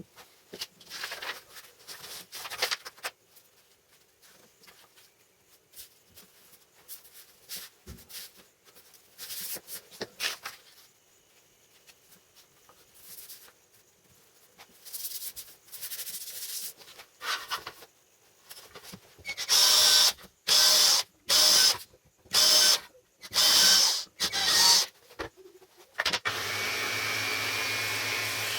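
Light handling clatter and clicks, then a power tool switched on in about seven short bursts, then run steadily with a low hum and a thin whine.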